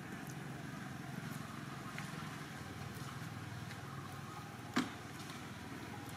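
Steady low rumble of distant road traffic, with one sharp click about three-quarters of the way through.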